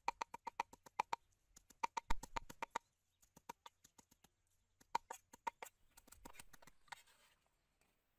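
Cleaver chopping raw meat on a thick wooden chopping block: fast runs of sharp knocks, about seven a second, coming in bursts with short pauses as the meat is minced.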